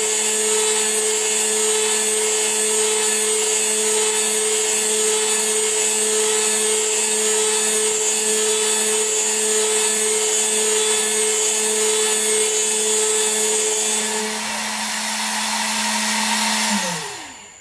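Small CNC milling machine's spindle running steadily at about 13,000 RPM while a 3 mm end mill cuts aluminium dry. The cutting note stops about 14 seconds in, and near the end the spindle winds down with a falling pitch.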